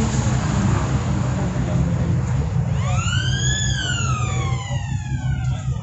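Steady low engine drone. About three seconds in, a siren-like wail rises sharply, then falls slowly away.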